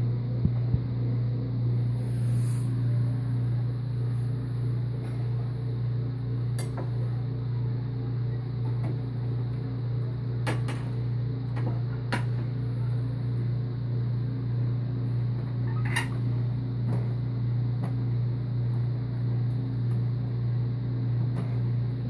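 Countertop microwave oven running: a steady electrical hum, with a few light clicks.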